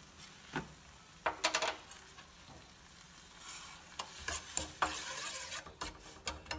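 A steel slotted spoon clinks and scrapes against a steel kadai while roasted moong dal and jaggery are stirred, with a few sharp ringing clinks in the first second and a half. After a quieter stretch, milk is poured in and stirred, bringing a hiss and rapid scrapes and clinks over the last three seconds.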